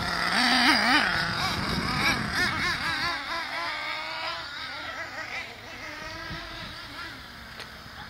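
Small two-stroke nitro engines of two HPI Trophy Truggy RC trucks running at high revs, their whine rising and falling as the throttle is worked. The sound fades as the trucks pull away around the track.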